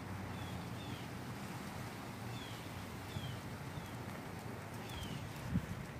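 A bird calling in short, high, falling chirps, repeated at irregular intervals over a faint low background rumble.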